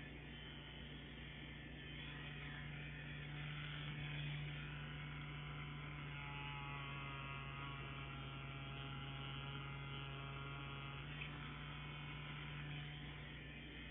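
CNC Q5 wireless rotary tattoo pen running, a steady low buzz, its pitch shifting slightly about eleven seconds in.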